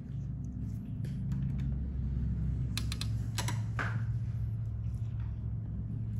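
A steady low hum, with a short cluster of sharp clicks about three seconds in.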